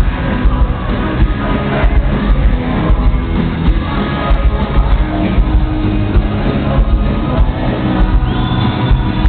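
Live rock band playing loudly, heard from within the audience: electric guitars and drums on a concert stage.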